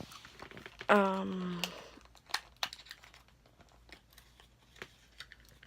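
Plastic wrapping of Scentsy wax-melt packages crinkling and clicking as they are handled, in scattered crackles.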